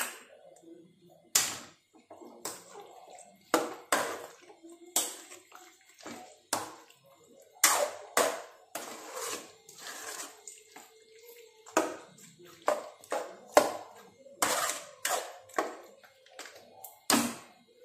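A steel spoon stirring chicken through thick, wet green masala in a metal kadai, scraping and knocking against the pan about once a second with squelching in between.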